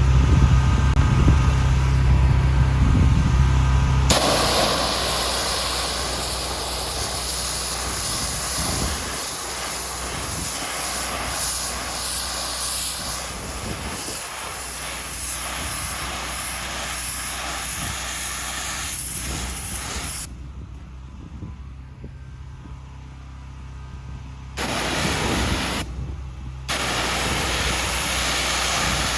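Pressure washer cleaning a natural stone patio: a steady hiss of the water jet over the hum of the machine. It comes in several clips that cut abruptly, with a quieter stretch about two-thirds of the way through.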